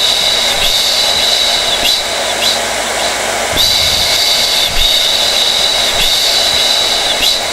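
Hair dryer running steadily: a continuous rush of air with a high whine that dips briefly now and then.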